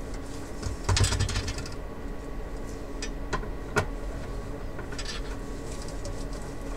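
Hand screwdriver and screws working against a monitor's sheet-metal chassis: a metallic rattle about a second in, then a few sharp clicks between three and four seconds, and another short rattle near five seconds, over a steady hum.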